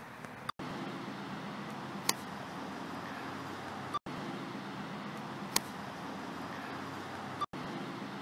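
Two crisp strikes of a golf club hitting a ball, about three and a half seconds apart, over a steady outdoor background hum. The sound cuts out for an instant twice between the strikes.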